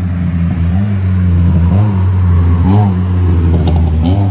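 Cars driving past close together on the street, their engines a steady low hum.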